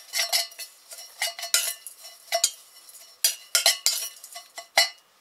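Metal spoon stirring dried herbs in a stainless steel mixing bowl: a quick, irregular run of scrapes and clinks of the spoon against the bowl, each leaving a short metallic ring.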